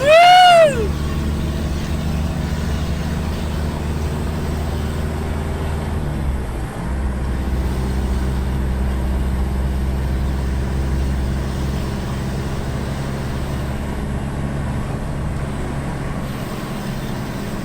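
A loud horn blasts once at the start, a single note of under a second that rises and falls in pitch, in the manner of an Indonesian telolet horn. Under it a vehicle engine drones steadily; about six and a half seconds in, the engine note briefly dips and then picks up again.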